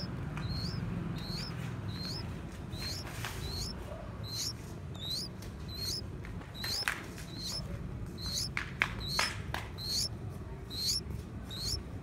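Nestlings begging in the nest: thin, high, rising cheeps repeated about twice a second, as the chicks gape for food. A few sharp clicks cut in around the middle of the sequence.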